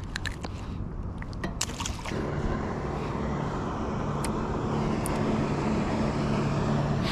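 A few light clicks and rattles of tackle being handled, then about two seconds in a small electric trolling motor switches on and runs with a steady hum over churning water.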